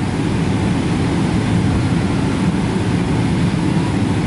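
Steady low rumble inside the cabin of a Boeing 777-300ER lined up on the runway before takeoff, its GE90-115B engines running.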